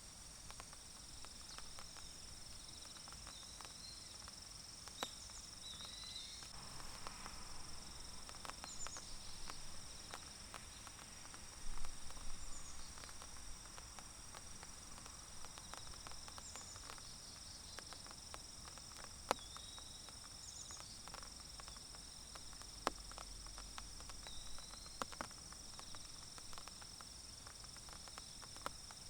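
Forest ambience: a steady high-pitched insect chorus trilling throughout, with scattered drops of light rain ticking on leaves and a few short chirps. A brief louder rustle comes about twelve seconds in.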